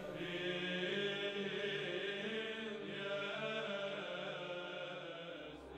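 Background music of slow chanting voices holding long, steady notes.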